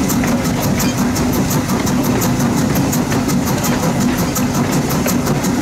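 Baldwin 2-10-0 decapod steam locomotive No. 90 running, heard from its front deck: a steady heavy rumble with a quick, even ticking pulse about four to five times a second.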